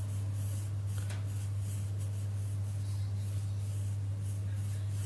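Graphite pencil scratching on paper in short, irregular strokes as a triangle is drawn, over a steady low hum.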